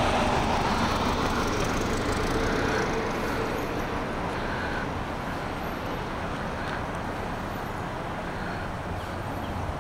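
A car driving past close by, its tyre and engine noise easing off over the first few seconds, followed by steady road traffic noise.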